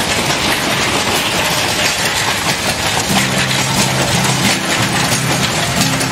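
Narrow-gauge freight wagons rolling past, their wheels clattering on the track with a steady rattle. Low steady tones join about halfway through.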